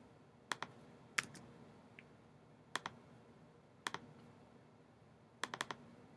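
Faint, scattered clicks of a computer mouse and keyboard: single clicks and pairs, spaced a second or so apart, then a quick run of several clicks near the end.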